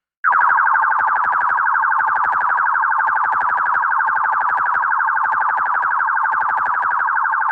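Synthesized sci-fi sound effect: a loud electronic tone that starts suddenly and holds at one pitch, buzzing with a rapid, even pulsing like an alarm, then cuts off.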